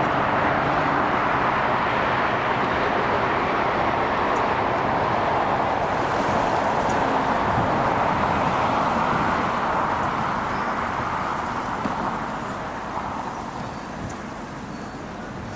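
A jet airliner's engines passing close by: a loud, steady rushing noise that starts to fade away about ten seconds in.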